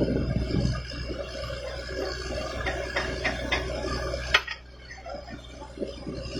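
Water gushing and splashing from a borewell over a steady low machine hum, with scattered clicks. A sharp knock a little over four seconds in is the loudest sound, and the water sound is quieter after it.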